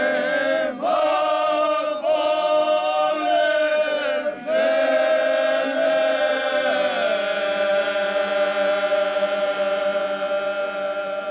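A group of men singing together unaccompanied in the traditional bećarac folk style, in long drawn-out held notes. The phrases break briefly a few times, then the last note is held for several seconds and fades out near the end.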